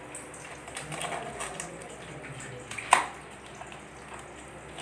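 Knife scraping the scales off small mujair tilapia on a wooden cutting board: a run of faint, irregular scrapes, with one sharp knock about three seconds in.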